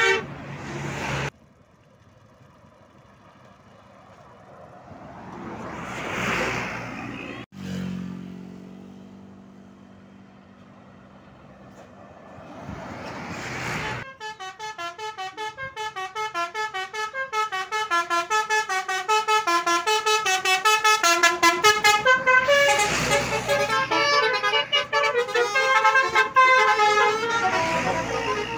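Buses passing on a highway, then from about halfway through a 'basuri' multi-tone bus horn plays a fast melody of short, changing notes.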